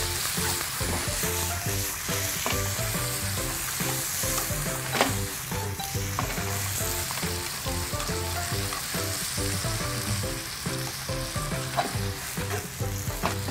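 Sliced beef shank sizzling in hot oil in a nonstick frying pan as it is stir-fried with chopsticks, with one sharp click about five seconds in. Background music of short repeating low notes plays under it.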